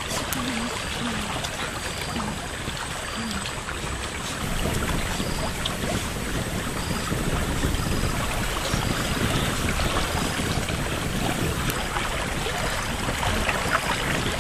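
Steady rush of running stream water, with a few faint voice sounds in the first few seconds.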